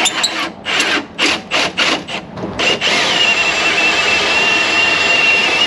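Cordless drill drilling out a window-regulator rivet in a car door's steel inner panel. It is triggered in several short bursts over the first two and a half seconds, then runs steadily with a high whine.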